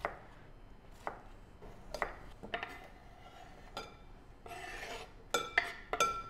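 Chef's knife and wooden cutting board tapping and scraping as diced fresh cucumber is pushed off the board into a ceramic bowl. Scattered light taps, a scrape about four and a half seconds in, then a few sharp clinks with a short ring near the end.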